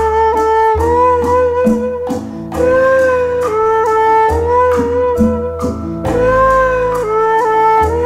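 Instrumental background music: a sustained melody line with held, slightly sliding notes over bass notes and a steady beat.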